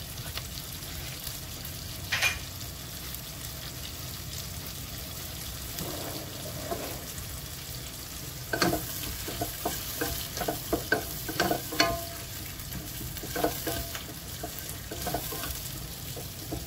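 Ground onion, garlic and ginger with lemongrass and chillies sizzling steadily in oil in a pot, while a wooden spatula stirs them. The spatula knocks and scrapes against the pot once about two seconds in and in several bunches in the second half.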